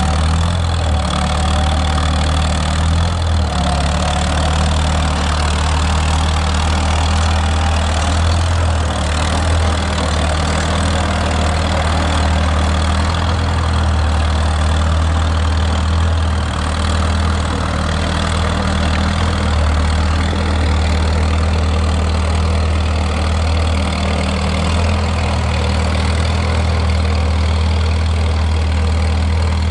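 A 1930s US Forest Service Trail Tractor, a small crawler tractor with a carbureted engine, running steadily as it drives.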